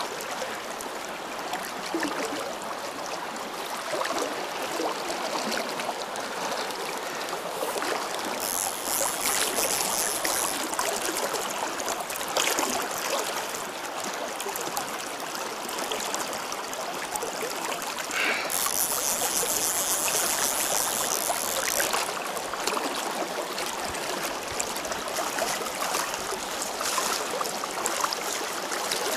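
Steady rush of flowing river water. Two stretches of louder, high hissing splash come about 8 seconds in and again about 18 seconds in, each lasting a few seconds.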